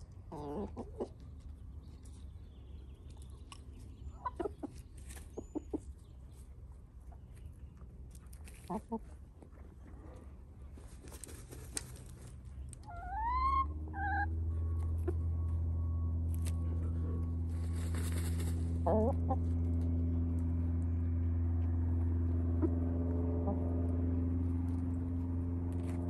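Hens dust bathing, giving soft scattered clucks among short scratchy bursts of dirt being tossed, with a few quick rising squawks about halfway through. Just then a steady low motor hum starts and carries on.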